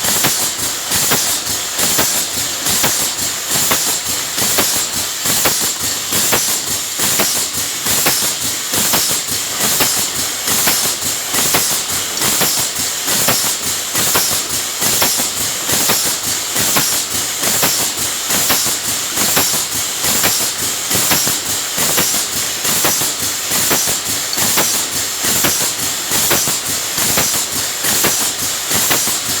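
Pneumatic aerosol filling machine running: a steady compressed-air hiss with dense, regular clicking from its valves and cylinders, pulsing in a repeating rhythm as it cycles.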